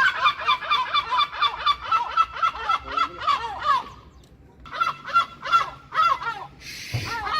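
Herring gull giving its laughing long call: a fast series of loud, repeated yelping notes, about four or five a second, breaking off about four seconds in and starting again shortly after. A brief rushing noise comes near the end.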